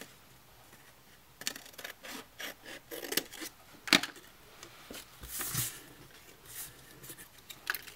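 Scissors cutting through designer series paper: a run of short snips, ending in one sharp snip about four seconds in. After that, softer rubbing and sliding of the paper on the work surface.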